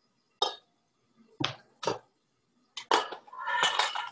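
Metal utensil knocking and clattering against a cooking pot as boiled potatoes are mashed: a few separate knocks, then a quicker run of clatter with a metallic ring near the end.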